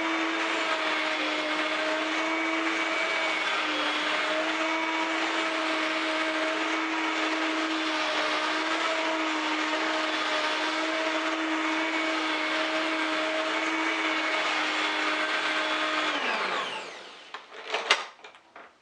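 Vacuum cleaner motor running with a steady whine, then switched off about 16 seconds in, its pitch falling as it winds down, followed by a few clicks and a knock.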